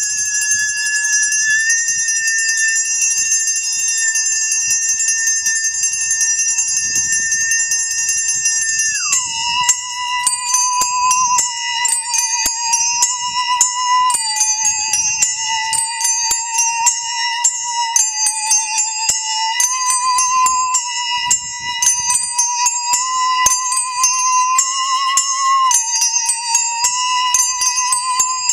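Small handbells ringing together with a bowed musical saw. The saw holds a high, steady note, then about nine seconds in slides down to a lower note with vibrato that steps between a few pitches, while the bells go from sustained ringing to many quick, repeated strikes.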